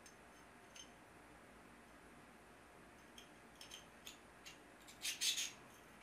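Near silence at first. From about three seconds in come a few light clicks and scrapes, the loudest just after five seconds: an M.2 NVMe SSD fitted with a thermal pad being slid into a heatsink enclosure by hand.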